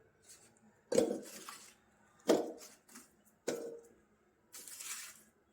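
Kitchen handling noises: three sharp knocks, each with a short ring, about a second apart, then a brief rustling hiss near the end.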